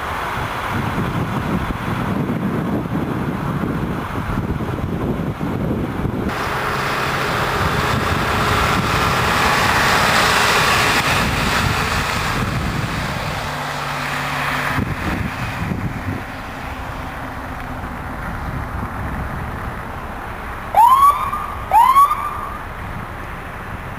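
Steady rushing noise of wind and vehicles, then about twenty-one seconds in an ambulance siren gives two short rising whoops about a second apart.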